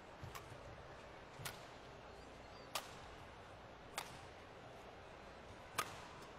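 Badminton rally: sharp racket strikes on the shuttlecock, about five hits roughly a second or so apart, over quiet arena hall noise.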